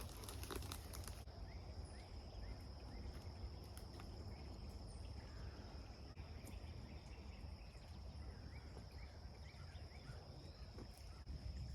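Insects trilling steadily on one high pitch over a low, even rumble of outdoor noise, with a short run of rustling clicks in the first second and faint short chirps scattered through.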